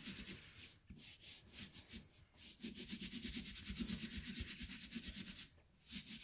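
Palms rubbing quickly back and forth over embossed cardstock, pressing a freshly glued layer flat onto the card base: a scratchy swishing of many fast strokes, with short pauses about two seconds in and again near the end.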